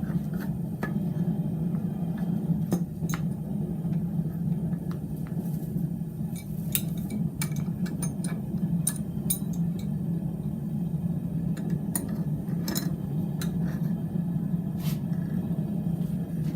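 Scattered light metallic clinks and ticks as a hot mild steel bar is worked into a bend, over a steady low hum.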